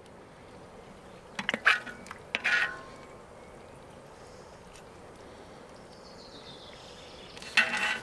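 A metal spoon scraping and clinking as meat stew is dished onto rice in a foam takeaway box: short scrapes about a second and a half in, again at two and a half seconds, and near the end, over a low steady outdoor background.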